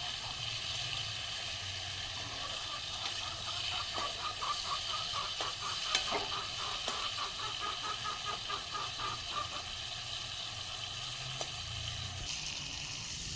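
Magur fish curry sizzling in a pan, with a steady hiss. From about three to nine seconds in there is a run of quick, even stirring strokes, roughly three a second, and a few scattered clicks.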